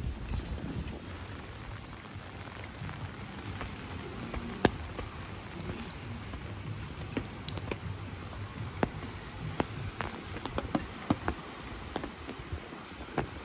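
Rain falling, a steady hiss with scattered sharp taps of single raindrops landing close by.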